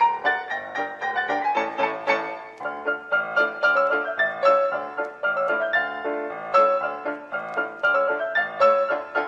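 Piano music, with notes struck several times a second and no break.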